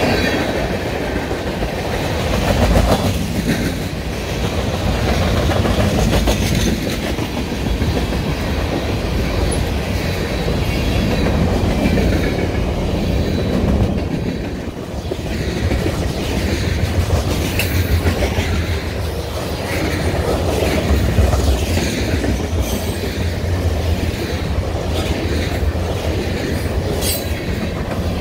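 Freight train cars, tank cars then covered hoppers, rolling past close by: a steady rumble of steel wheels with clickety-clack over the rail joints.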